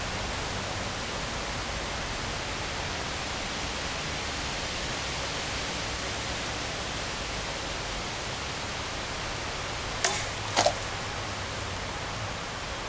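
Steady outdoor background hiss; about ten seconds in, two sharp cracks about half a second apart as a shot strikes the plastic water bottle and knocks its top.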